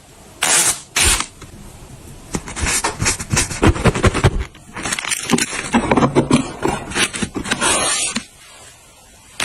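Objects being handled: a busy run of clicks, knocks and rattles, like hard items set down and shifted against one another, going quiet about a second before the end.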